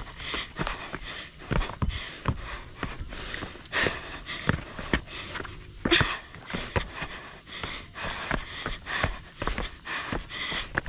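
Quick, uneven footfalls of a runner descending bare rock slabs, with hard panting breath close to the head-mounted microphone.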